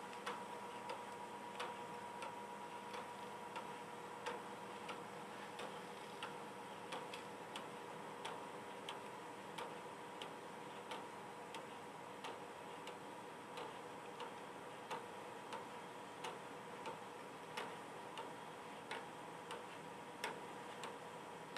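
Plastic-geared pendulum clock ticking steadily, a sharp click about every two-thirds of a second from its escapement, over a faint steady hum.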